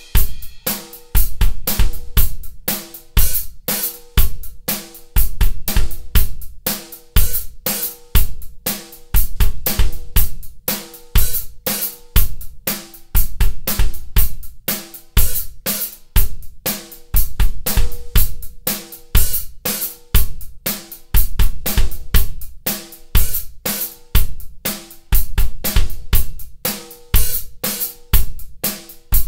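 A drum kit played in a steady groove around a 14x7.5 walnut stave snare drum with wooden hoops, with the snare hits over kick drum and cymbals or hi-hat. A ringing note sustains under the hits.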